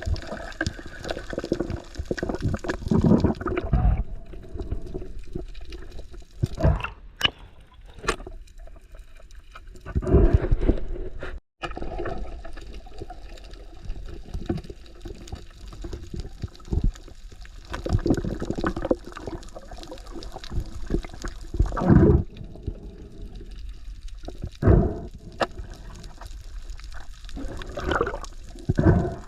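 Water sloshing and gurgling, with uneven swells and a few sharp clicks, and a brief dropout partway through.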